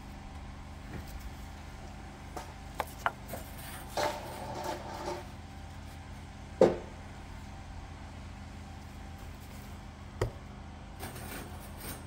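A few short knocks and clinks of a steel sawmill bandsaw blade being handled and shifted along a wooden pallet, one sharper knock about two-thirds of the way through, over a steady low hum.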